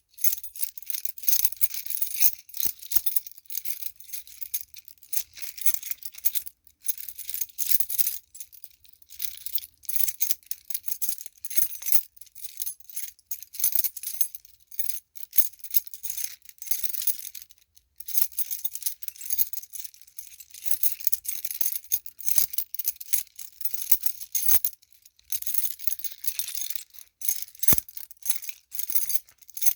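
A bunch of metal keys on a key ring jangling as they are shaken, in uneven bursts of bright clinking with short breaks now and then.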